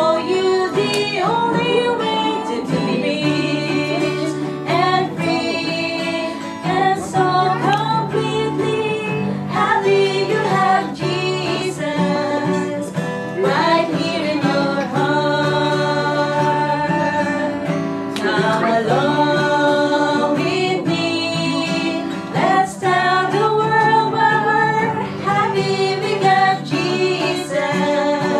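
Voices singing a gospel song with acoustic guitar accompaniment.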